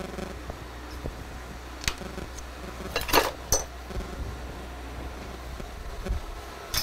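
Steel hand tools clinking and clattering as they are handled and set down on a steel machine vise and bench. There is a single clink about two seconds in, a louder cluster of clinks about three seconds in, and another at the end, all over a steady low hum.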